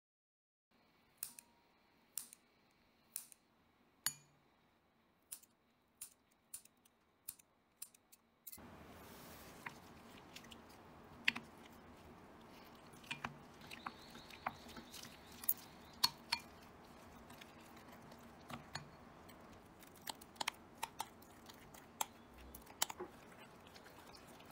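Dates dropping one by one into a ceramic bowl of soy milk, about one sharp click a second. Then, from about a third of the way in, a wooden spoon mashing the soaked dates and stirring them into rolled oats, with scraping and scattered sharp taps against the bowl.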